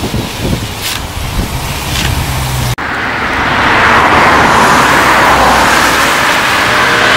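Straight-piped BMW M3 E92 with its 4.0-litre V8: first a low, uneven rumble as the car rolls slowly on wet ground, then, after an abrupt cut, a steady rising hiss of tyres on a wet road with the engine note growing as the car approaches at speed, its pitch becoming audible near the end.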